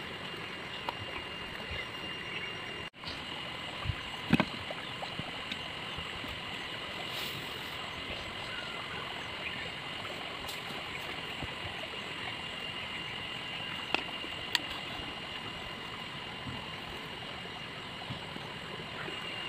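Steady rushing outdoor background noise with a faint, steady high whine, broken by a few small clicks as steel wire is cut and bent with pliers.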